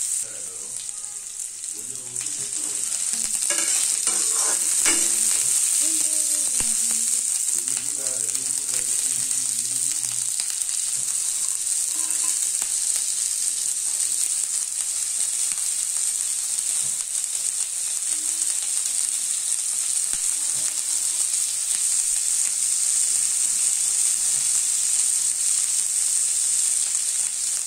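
Onions, potatoes, peanuts, peas and cauliflower frying in oil in a kadai: a steady sizzle, with a spatula stirring and scraping through the vegetables.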